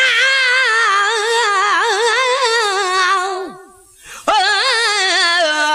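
A Sindhi naat singer sings long, drawn-out wordless notes with a heavy, wavering vibrato. There are two sustained phrases, with a brief break for breath about three and a half seconds in.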